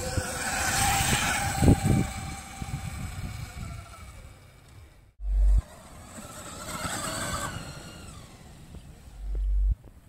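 Electric dirt bikes riding past over grass: a high electric motor whine that swells and fades with each pass, over tyre and ground noise. Two short low rumbles of wind on the microphone, about five seconds in and near the end.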